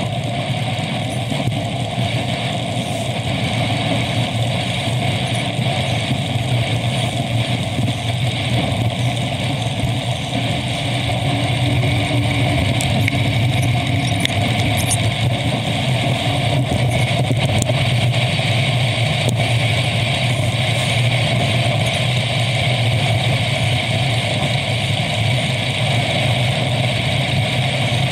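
Steady road noise heard while riding along a road: a constant hum with no breaks, a little louder from about twelve seconds in.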